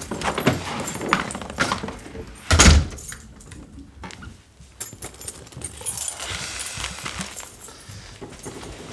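Keys jangling and small clicks as a front door is opened, then the door shutting with a single loud thud about two and a half seconds in, followed by faint rustling and small knocks.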